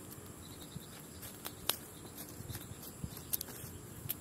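Soft footsteps on grass with a few faint sharp clicks scattered through, over a quiet steady outdoor background.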